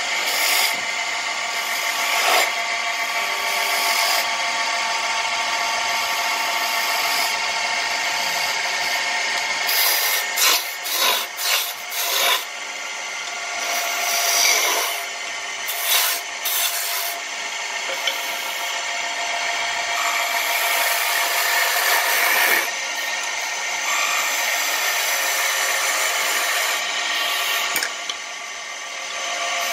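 Woodworking power tool running on wood: a steady motor whine under the noise of cutting or sanding. A cluster of sharp knocks comes a little under halfway through, and the sound drops briefly near the end.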